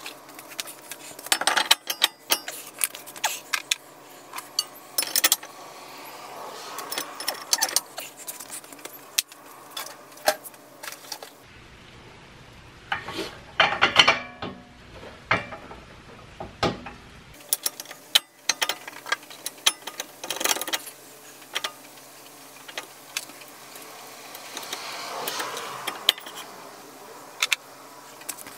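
Irregular metallic clinks, knocks and rattles of brake hardware and hand tools as a new rear brake rotor and caliper bracket are fitted to a car's wheel hub, with a busier cluster of clatter about halfway through.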